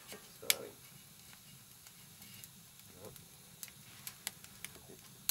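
Wood fire crackling in a stove's firebox, with scattered sharp ticks and pings from the heating steel tin pyrolyser in the flames. A louder knock comes about half a second in.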